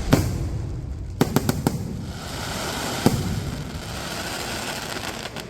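Fireworks going off: a sharp bang at the start, a quick run of four bangs about a second in and another bang near three seconds, with a sustained crackling hiss from about two seconds on.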